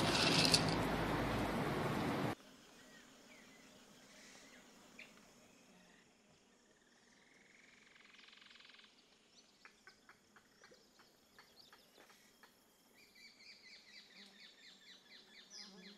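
A steady hum with hiss cuts off suddenly about two seconds in. It is followed by faint outdoor ambience with scattered chirps, which turn into a quick run of repeated chirps near the end.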